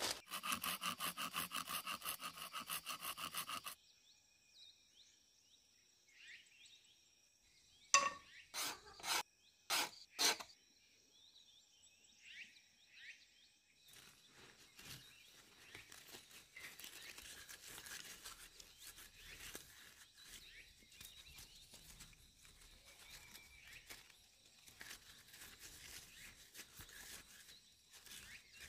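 Hands crumpling and rubbing dry wood shavings into a tinder ball, a soft dry rustling that starts about halfway through. Before it comes a loud rapid pulsing buzz that stops suddenly after a few seconds, then faint bird chirps and a handful of sharp knocks.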